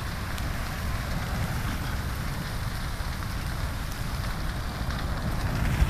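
Vegetation fire burning: a steady crackling hiss over a low rumble.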